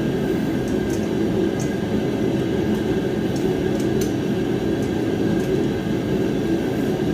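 Propane space heater running, a constant low rumble that holds steady throughout, with a few faint light clicks above it.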